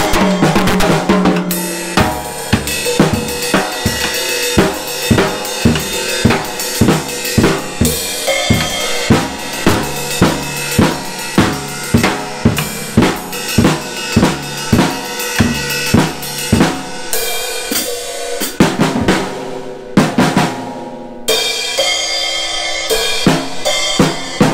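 Pearl Roadshow acoustic drum kit being played: bass drum, snare and Zildjian cymbals in a steady beat of about two strong hits a second, with a short break about twenty seconds in before the beat picks up again.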